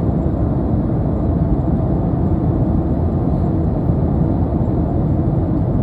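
Airplane cabin noise in flight: engines and rushing air make a steady low rumble heard from inside the cabin.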